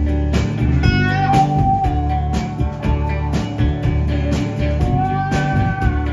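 Live rock band playing an instrumental passage: an electric guitar holds long notes, bent upward about a second in and again near the end, over bass guitar and a steady drum beat.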